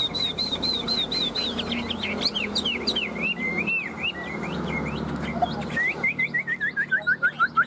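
Chinese hwamei singing: a string of repeated whistled notes, then varied sliding phrases, and near the end a fast run of short notes.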